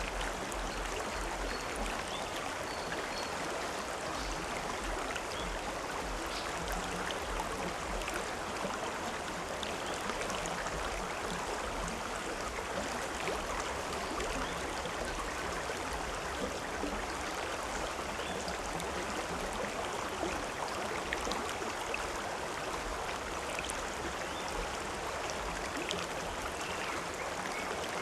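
A stream or small river flowing and splashing over rocks: a steady rushing babble with small splashes scattered through it.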